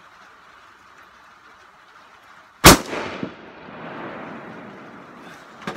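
A single shot from a Forbes 24B rifle in .25-06 Remington, a sharp crack about two and a half seconds in that rolls away in echoes for a couple of seconds. A short, much quieter sharp click comes near the end.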